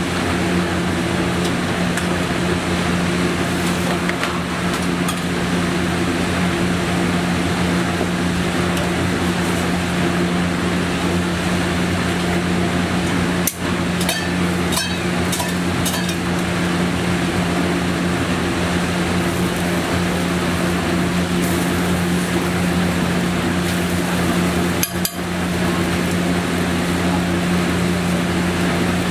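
Steady mechanical hum at a street-food griddle, with a few sharp metal taps of a spatula on the dosa griddle around the middle and one more near the end.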